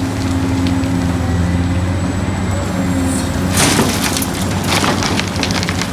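Large Caterpillar hydraulic excavator's diesel engine running steadily. About three and a half seconds in, a loud crash of soil dropping from the bucket into a dump truck's bed, then scattered knocks as the load settles.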